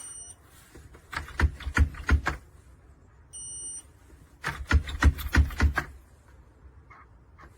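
Two bursts of hard knocking on a door, four to six quick knocks each. A short, high electronic beep sounds at the start and again before the second burst.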